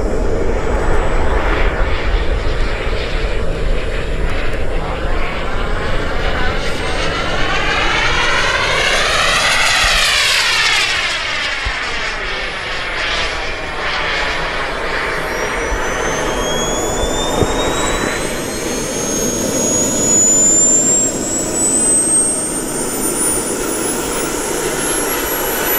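Radio-controlled AJ Slick aerobatic model plane flying by, its motor and propeller drone swelling to a peak as it passes about ten seconds in, then easing off. A high rising whine comes in during the last ten seconds.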